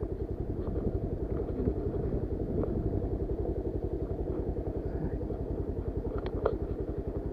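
Motorcycle engine running steadily with a rapid, even pulsing, and a few faint clicks.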